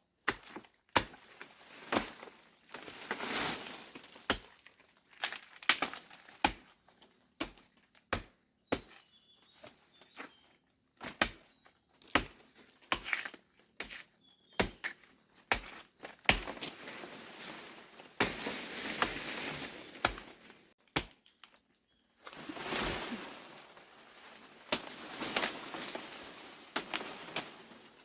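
A run of irregular sharp knocks and taps, mixed with stretches of rustling.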